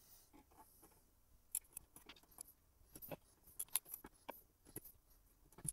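Faint, scattered small clicks and taps of DIP RAM chips being pulled from and pressed into their sockets on an AST Rampage 286 memory card, starting about a second and a half in. The chips are being swapped one row at a time to find a faulty memory chip.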